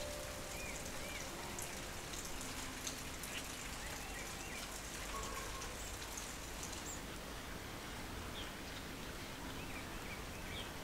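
Light rain falling steadily, with many small drops ticking and dripping, and a few faint bird chirps.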